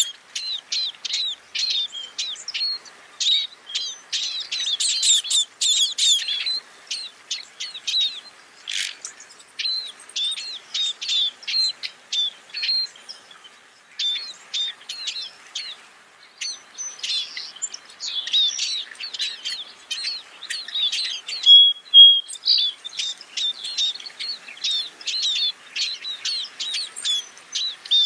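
Scaly-breasted munia (spice finch) calling: a rapid run of short, high chirps, with one brief held whistle, the loudest note, about three quarters of the way through.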